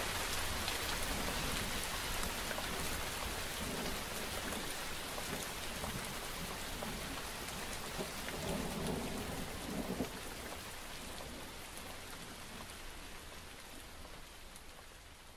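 Steady rain with a low rumble of thunder swelling about eight to ten seconds in, the whole slowly fading.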